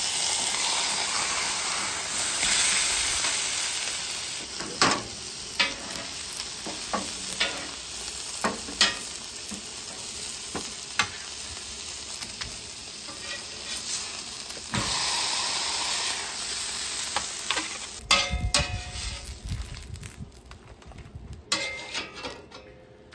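Chuck roast, onions, carrots and dried chiles sizzling on a hot flat-top griddle, with sharp clicks and scrapes of metal tongs and a spatula as the food is moved onto a sheet pan. The sizzle dies down in the last few seconds.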